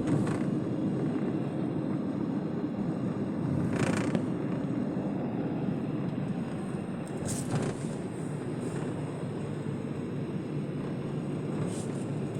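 Steady road and engine noise inside a moving car, with three short louder rushes through it.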